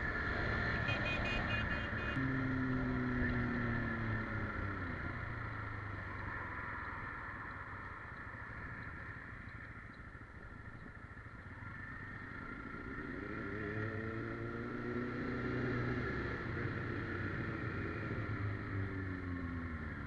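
Motorcycle engine under way: the revs drop about two seconds in as it slows, run low and quiet for a few seconds around the middle, then climb again as it accelerates, dropping once more near the end.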